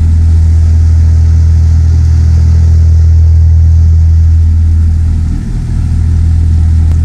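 A narrowboat's engine running steadily under way: a loud, low, even drone heard from the stern deck, with a brief dip in level about five and a half seconds in.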